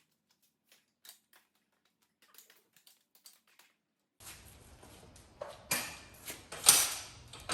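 Scattered faint clicks, then a few sharper clicks and knocks in the second half, the loudest about two-thirds of the way in.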